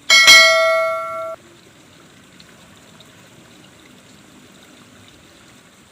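A single bright metallic ding, like a small bell struck once, ringing for about a second and then cutting off suddenly. After it there is only a faint steady background.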